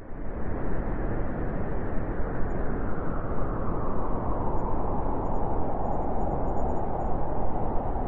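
Steady rushing noise recorded on the open deck of a moving ship: wind and the ship's passage through the water, with a deep rumble underneath.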